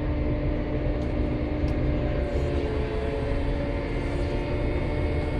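Vehicle engine running steadily under way, heard from inside the cab as a low drone with a steady hum and road rumble.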